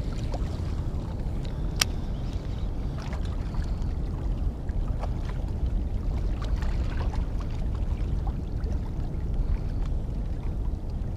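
Steady low rumble of wind on the microphone, with water lapping against shoreline rocks and a few faint clicks.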